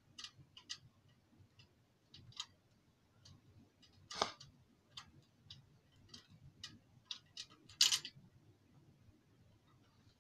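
Light, irregular metallic clicks and ticks of a wing nut being turned and handled on the hardware of a Honeywell EnergySmart electric radiator heater, with two louder clacks about four and eight seconds in.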